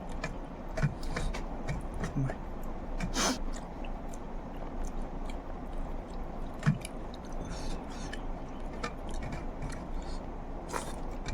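Close-up chewing and eating of egg curry: irregular wet mouth clicks and smacks, with a sharper click about three seconds in and another near seven seconds.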